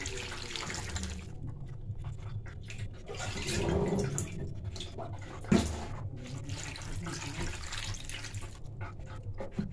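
Water poured from a bowl into a pan of mixed vegetables, splashing and trickling, heaviest about four seconds in. A single sharp knock comes a little past halfway.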